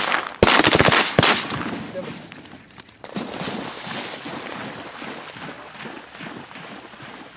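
A quick volley of shotgun blasts from several hunters in the first second or so, then a retriever dog bounding and splashing through shallow marsh water from about three seconds in.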